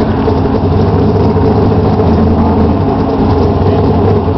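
A vehicle engine idling steadily with an even, unchanging hum.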